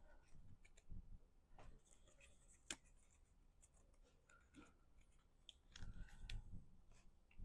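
Faint rustling and light clicks of cardstock pieces being handled and pressed together while gluing, with one sharper click near the middle.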